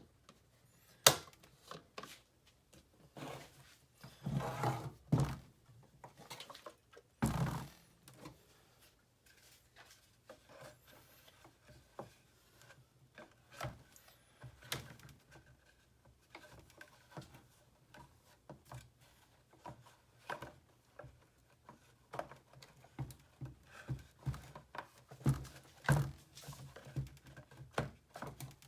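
Irregular clicks, taps and knocks of objects being handled, with a sharp loud click about a second in and a couple of heavier thuds a few seconds later.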